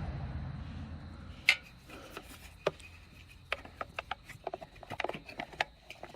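Hard plastic headlight and turn signal socket parts clicking, knocking and rubbing as they are handled and pushed together, with one sharper click about a second and a half in and a quick run of small clicks after. A low rumble fades out in the first second or so.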